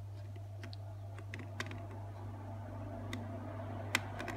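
Small plastic Shopkins figurines clicking and tapping against a plastic playset as they are picked up and set down: a few scattered light clicks, with one sharper click near the end, over a steady low hum.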